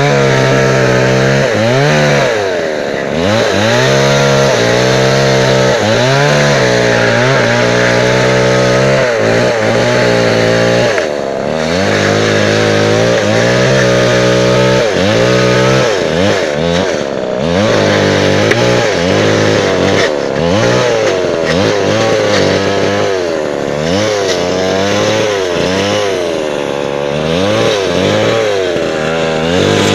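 An engine revved up and down over and over without a break, its pitch rising and falling every second or so, with brief drops about 3, 11 and 17 seconds in.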